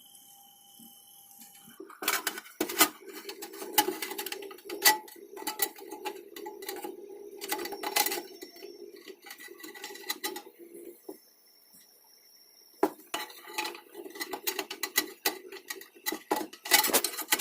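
Metal clattering and clicking as a computer power supply's fan and sheet-metal cover are handled and fitted back, over the hum of the running fan, which stops for a couple of seconds about eleven seconds in.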